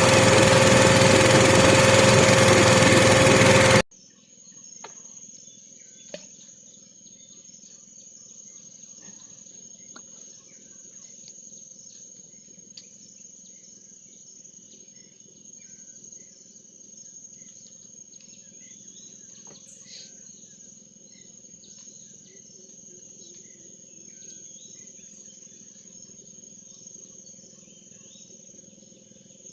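A small engine runs loudly and steadily, then cuts off abruptly about four seconds in. After that, insects keep up a steady high-pitched drone, with a few faint clicks scattered through it.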